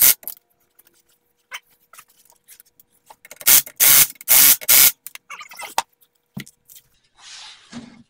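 Cordless impact wrench running lug nuts down onto a car wheel in short bursts: three quick bursts about three and a half seconds in, with small clicks of handling around them and a softer scraping noise near the end.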